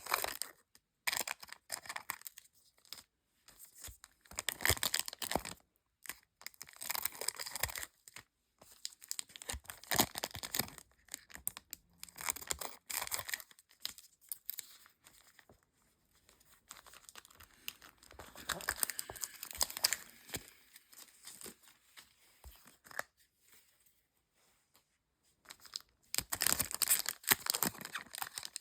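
Pokémon card booster packs being torn open and their foil wrappers crinkled, in repeated short bursts of tearing and rustling with quiet gaps between.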